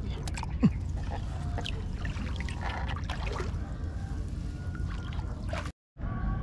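Water splashing and trickling over a steady low rumble, with scattered small knocks and one brief louder falling sweep about half a second in.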